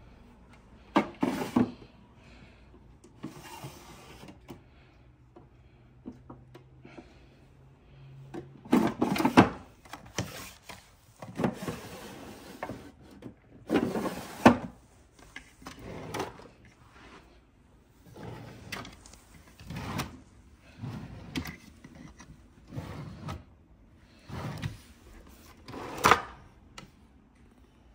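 Small objects being handled and set down on a hard surface: about fifteen separate knocks and clatters at irregular intervals, as of things being put away on a vanity or in a drawer.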